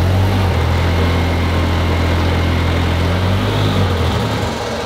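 Single-rotor rotary engine running at a steady pitch under load on a Dynapack hub dyno. It is falling on its face, stuck at about 110 horsepower as if running out of fuel, even though the fuel pressure reads correct.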